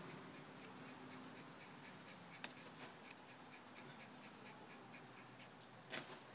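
Faint crunching and ticking of dogs chewing a stick, with a sharp crack about two and a half seconds in and another near the end, over a low steady hum.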